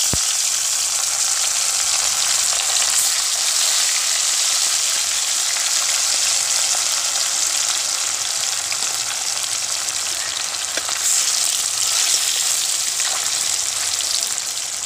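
Fish slices frying in hot oil in a wok, a loud, steady sizzle.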